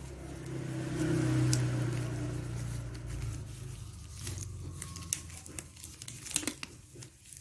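Objects being handled in a small room: rustling, with a low rumble for the first few seconds, then a series of light clicks and taps.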